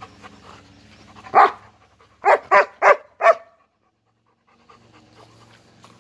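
German shepherd barking five times: one bark about a second and a half in, then four quick barks in a row, with panting before and after.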